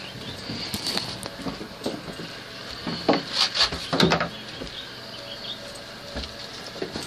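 A wooden gate and its latch hardware knocking and rattling as they are handled, with a cluster of sharp clatters about three to four seconds in.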